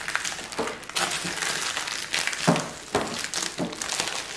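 Clear plastic popsicle sleeves crinkling and rustling as freeze-dried popsicles are picked up and moved about, with many short sharp crackles.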